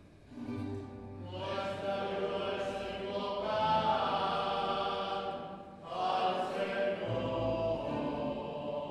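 Sung response of the responsorial psalm at Mass, sung in two long held phrases with a short break about six seconds in.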